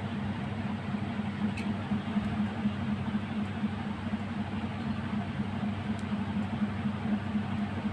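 Steady low hum with an even whirring hiss from a running machine, with two faint ticks.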